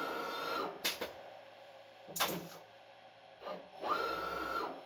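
CNC lathe with a 4-position turret running its program: a motor whine that rises, holds for under a second and falls back, at the start and again near the end, with two sharp clacks in between.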